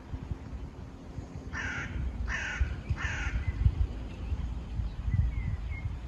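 A crow cawing three times in quick succession, the calls about two thirds of a second apart, over a low rumble. A small bird chirps faintly near the end.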